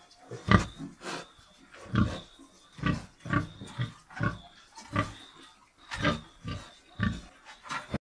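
An animal making short, separate calls, repeated irregularly about twice a second.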